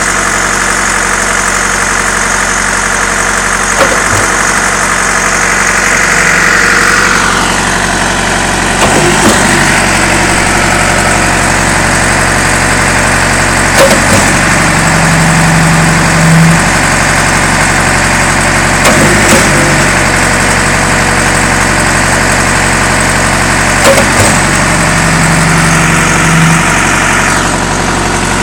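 Concrete pump's diesel engine running steadily, with a clunk about every five seconds as the pump changes stroke while pushing concrete.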